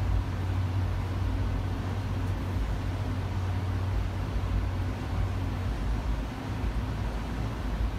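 Steady low hum with an even hiss over it, while beer runs into an aluminium can through a bottom-filling wand.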